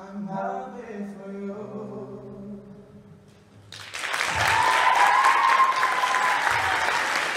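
A song with a singer's voice fades out, and about four seconds in an audience breaks into loud applause, with one cheer rising over the clapping.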